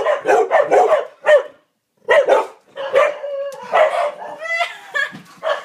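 Dogs barking excitedly in rapid volleys. They break off briefly after about a second and a half, then start again with a few longer, higher-pitched cries mixed in.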